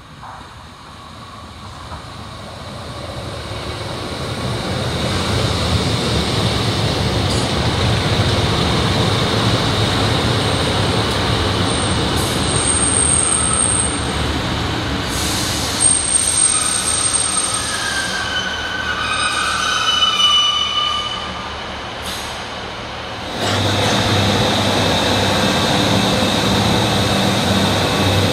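Northern Class 155 diesel multiple unit approaching and running past, its underfloor diesel engines and wheels growing steadily louder to a loud rumble. Shrill wheel squeals and squeaks come midway as it moves through the station. Near the end the sound switches abruptly to another diesel train running past.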